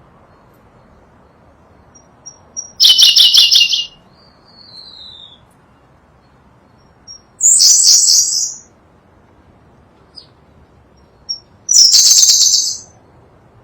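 Sunda blue robin singing: three short, high, rapidly trilled phrases about four to five seconds apart, each led in by a soft pip or two, with a faint falling whistle after the first phrase.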